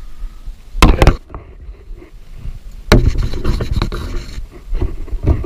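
Handling knocks and rubbing on a plastic fishing kayak while a caught largemouth bass is held and handled: two loud knocks about a second in, a sharp knock near three seconds followed by a second or so of rustling, and another knock near the end.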